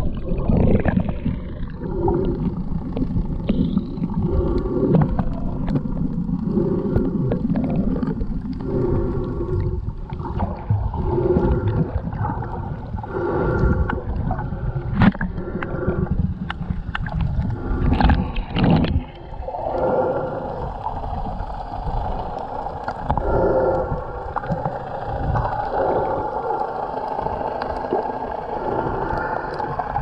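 Underwater sound picked up by a GoPro inside its waterproof housing: a steady, muffled, low rumble of water with faint droning tones that come and go, and a few sharp knocks about halfway through.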